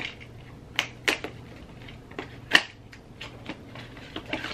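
Irregular crackles and clicks of plastic packaging being handled and opened, the loudest about two and a half seconds in.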